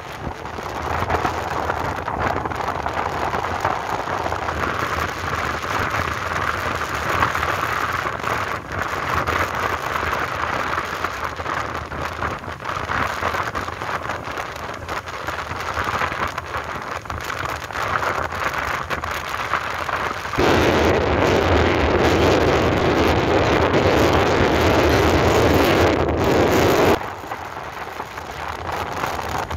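Wind rushing over the microphone of a moving motorbike, with the bike's engine and road noise beneath. The rush jumps louder about two-thirds of the way through and drops back suddenly a few seconds before the end.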